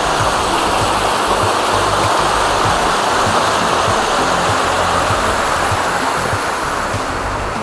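Steady rushing of a mountain creek.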